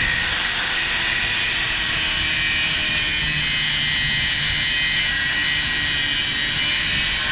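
Electric angle grinder running at full speed, its cutting disc grinding into a thin metal rod: a steady, high whine that holds level throughout.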